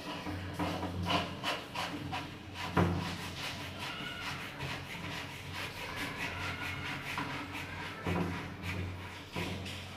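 Hands working at the underside of a plastic toilet cistern: repeated scraping and rubbing against the plastic, with one sharp knock about three seconds in.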